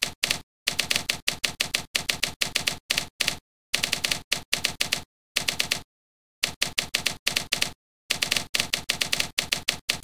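Sampled typewriter key clacks played by a typewriter-themed word processor as text is typed: quick runs of sharp clacks, about four to five a second, broken by short pauses, with dead silence between strikes.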